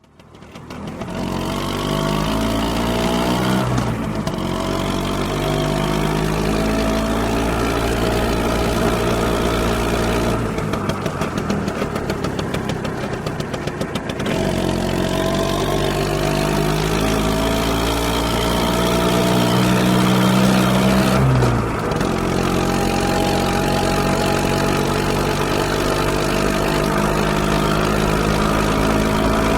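Motor scooter engine starting up, then climbing in pitch twice as the throttle is opened. Each climb ends in a sudden drop back to a lower, steady running note, with a rougher, ticking idle in between.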